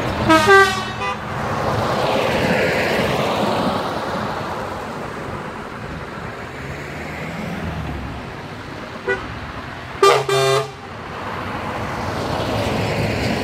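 Heavy trucks driving past close by in a convoy, engine and tyre noise swelling as each one passes, with truck horn blasts: a long honk at the start followed by a short one, a short toot about nine seconds in, and two more blasts about a second after that.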